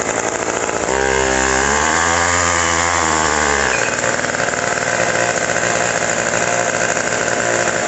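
Old McCulloch two-stroke chainsaw engine driving a homemade trike's front wheel, revved up about a second in, held at high speed, then eased back a little before 4 seconds and kept running steadily; the run-up is for a burnout.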